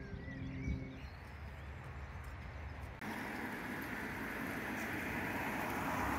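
Background music ending about a second in, then steady outdoor noise without any clear source that gets louder and fuller about three seconds in.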